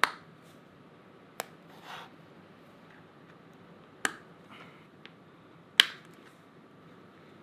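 Four sharp clicks spread over several seconds, the loudest near the end, with two soft rustles between: small tools and wiring parts being handled during electrical wiring work.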